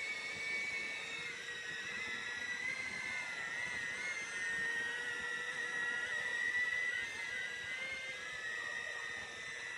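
Cine 8 FPV drone's motors and propellers whining at a high pitch, several tones sliding up and down and crossing as the throttle changes.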